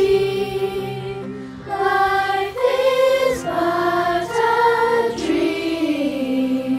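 Children's and youth choir, separately recorded voices mixed into one virtual choir, singing long held notes in harmony. The phrase breaks briefly about a second and a half in, then the singing resumes.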